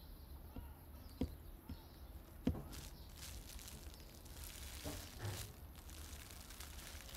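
A few soft footsteps on paving stones, about half a second apart, then a few seconds of soft rustling.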